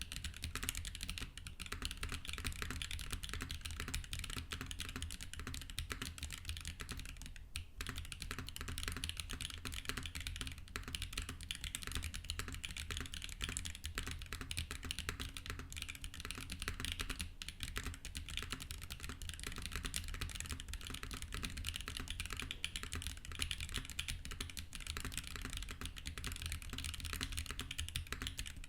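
Continuous fast typing on a custom mechanical keyboard fitted with Wingtree Yunie tactile switches, a rapid stream of key clacks with a brief lull about a third of the way in.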